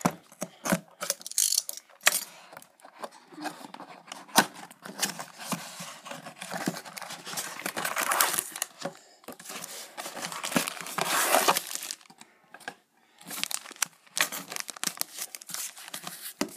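Packaging being torn open and handled: a cardboard card box and the plastic wrap of its card packs and sleeves tearing and crinkling, in irregular rustles and clicks, with longer bursts about eight and eleven seconds in.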